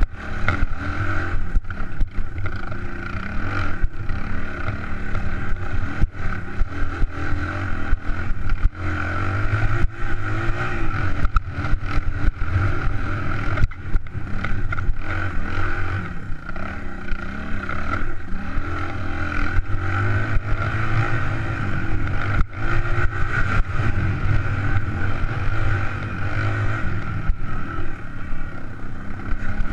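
Suzuki DR200 dirt bike's single-cylinder four-stroke engine running under riding load on a rough trail, its pitch rising and falling with the throttle. Frequent knocks and rattles from the bike jolting over rocks and ruts.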